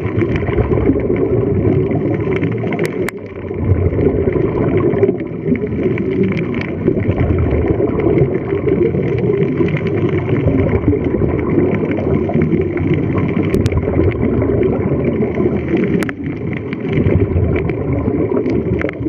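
Muffled, steady underwater rumble picked up by a camera below the surface, with scuba divers' exhaled regulator bubbles and a few sharp clicks.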